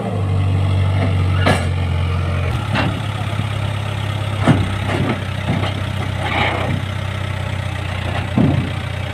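Heavy diesel engine running steadily at idle, with several short knocks over it.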